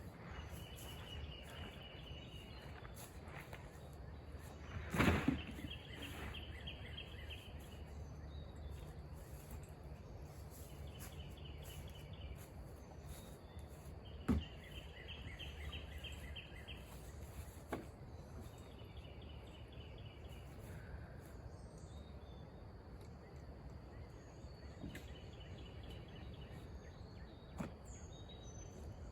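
Outdoor ambience with a steady low rumble and a high, rapid trill that repeats every few seconds, each trill lasting about a second or two. A single loud thump sounds about five seconds in, and a few sharp clicks come later.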